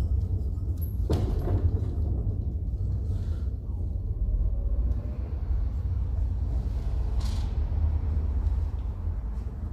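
A few knocks and clicks of metal motor parts being handled as the end cover goes onto an evaporative-cooler motor, over a steady low rumble. The clearest knocks come about a second in and again about seven seconds in.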